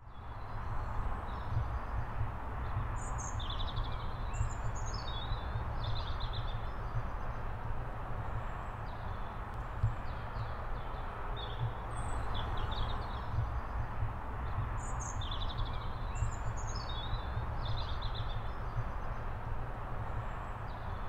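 Outdoor ambience: a steady low rumble and hiss, with small birds chirping in two clusters of short calls, a few seconds in and again past the middle.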